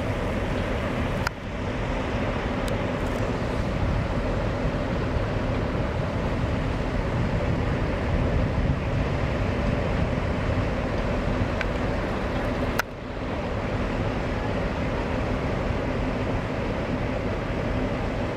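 Steady street-traffic noise with a constant engine hum from vehicles. It drops out suddenly and briefly twice, about a second in and again near the middle.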